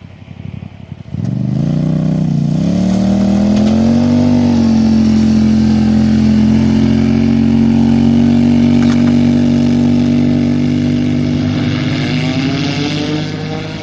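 An engine starts up loudly about a second in, speeds up over the next few seconds, then runs at a steady high pitch; near the end its pitch shifts and it gets a little quieter.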